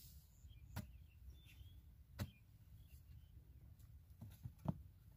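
A long-handled digging tool striking hard, dry cracked mud. Single sharp knocks come about a second and a half apart, with a few lighter knocks just before the last one, which is the loudest.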